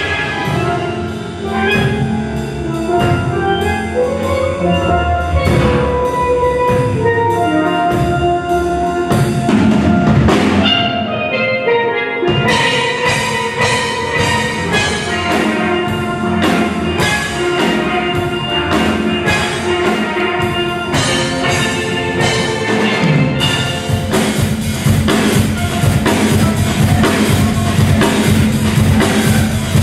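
Steel band playing: an ensemble of steel pans sounding quick struck melodic notes together over percussion.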